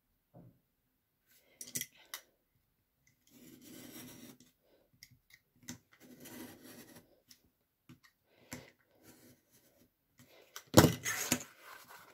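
A craft knife drawn along a steel ruler, scoring through thick card in several slow scraping strokes with small clicks between them. Near the end comes a loud knock and a brief clatter as the ruler and board are handled.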